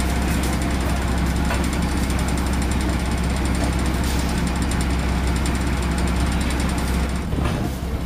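A heavy engine running steadily with a strong low hum and a rattling haze over it; the sound changes about seven seconds in.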